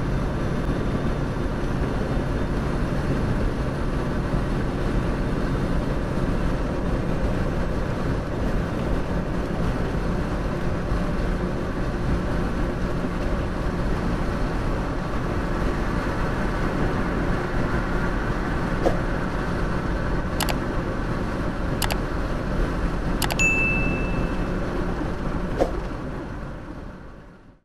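Semi truck's engine and road noise heard from inside the cab while cruising on the highway, a steady drone. In the last third a few sharp clicks sound, one with a short high beep, and the sound fades out at the end.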